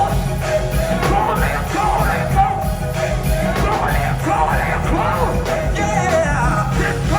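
Gospel choir singing over a live band, loud and steady throughout.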